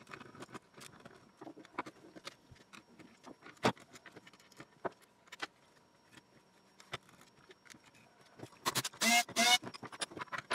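Scattered small clicks and taps of a screwdriver and hands working on a charge controller's circuit board and housing, with one sharp click about a third of the way in. Near the end comes a louder clatter with a brief squeak as the housing is lifted and turned over.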